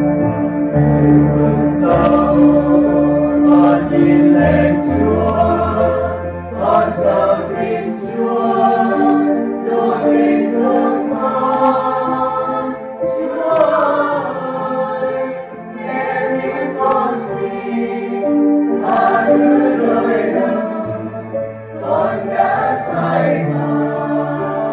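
Mixed choir of men and women singing a Vietnamese Catholic hymn together, over keyboard accompaniment holding low sustained notes.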